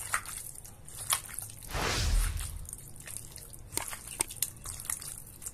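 Raw chicken strips being mixed by hand in a stainless steel bowl with lemon juice and seasoning: wet squelching and small clicks, with a louder squelch about two seconds in.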